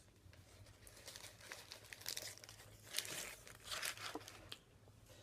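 Faint crinkling and rustling of handled food packaging, in short irregular bursts for a few seconds.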